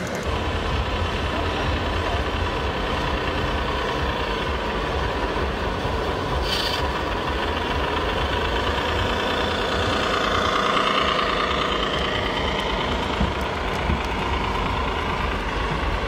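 Radio-controlled model truck running: a steady engine-like drone over a low rumble, with a whine that swells and fades about two thirds of the way through and a short click about six seconds in.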